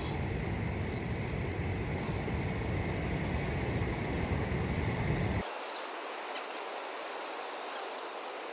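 Wind buffeting the microphone, a heavy low rumble that cuts off abruptly about five and a half seconds in, leaving a lighter steady hiss.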